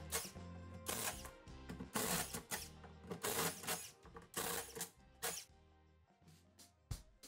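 Background music with a steady drum beat, growing much quieter about six seconds in.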